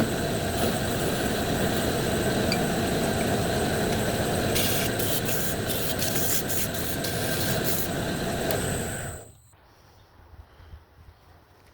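Wood lathe running steadily, with a turning tool cutting the spinning wood in short scraping bursts about halfway through. The lathe stops suddenly about nine seconds in, leaving only faint small taps.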